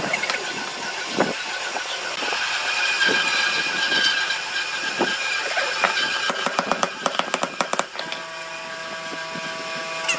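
Metal bar clamps being handled and tightened on a wooden box: scattered knocks of clamp jaws and wood, then a quick run of metal clicks about six seconds in as a clamp is slid and set. A steady hum starts about eight seconds in.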